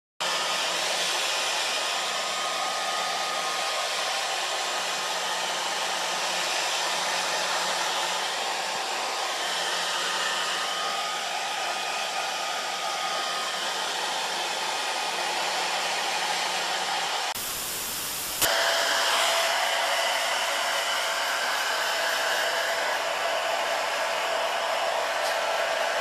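Hand-held hair dryer blowing steadily. About 17 seconds in there is a brief break, then a dryer runs on a little louder with a faint steady hum.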